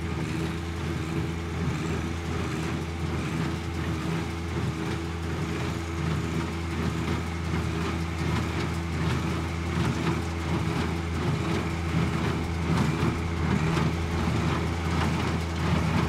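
John Deere 1025R subcompact tractor's three-cylinder diesel running steadily under load while pulling a John Deere 327 small square baler through a windrow, with knocks and clatter from the baler's working mechanism over the engine note.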